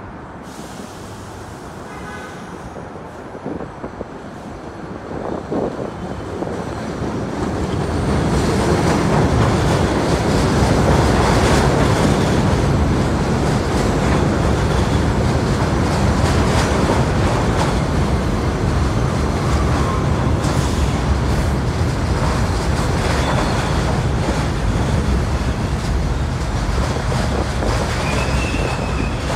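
Mixed R68/R68A subway train pulling into an elevated station. Its rumble grows over the first eight seconds as it approaches, then holds as a steady loud run of steel wheels on rail while the cars pass along the platform. A short high wheel squeal comes near the end.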